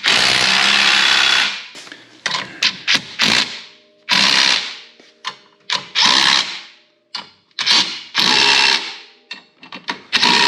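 Cordless power tool tightening bolts in repeated bursts of about a second each, with short clicks of handling between them.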